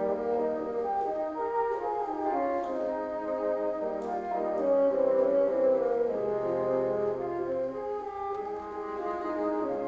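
Bassoon quartet playing live: four bassoons in several parts, a moving upper line over held lower notes, with a deep bass note sounding about six seconds in.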